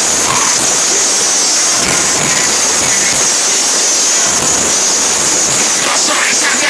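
Live band and crowd at a concert, so loud that the recording overloads into a steady roar. The vocals barely stand out from the wash.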